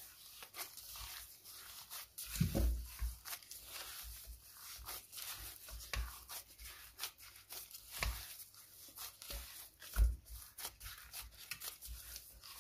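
Hands kneading soft buttery cookie dough in a glass bowl: irregular squishing and rubbing, with a few dull thumps.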